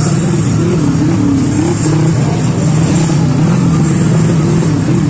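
Drag bike engines revving hard and continuously, a loud, steady sound with a wavering pitch.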